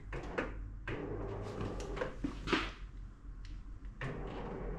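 A window and its fittings being handled: a series of light clicks and knocks, with a short sliding rustle about two and a half seconds in.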